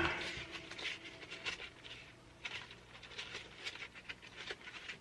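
Faint, scattered light clicks and rustles of hands handling car wiring, with a low hum underneath.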